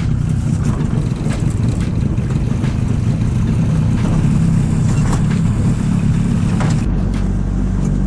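Outboard motor running steadily, driving a small boat under way.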